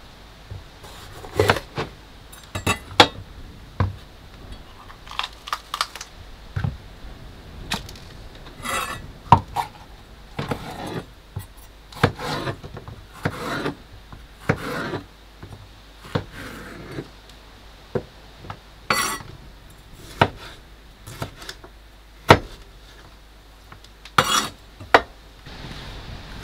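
Chef's knife cutting a bell pepper on a plastic cutting board: irregular sharp knocks of the blade against the board, mixed with longer slicing strokes.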